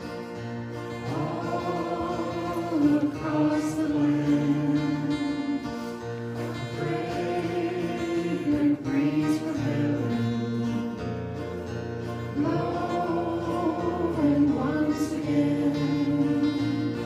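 Worship music: voices singing a slow song together over instrumental accompaniment.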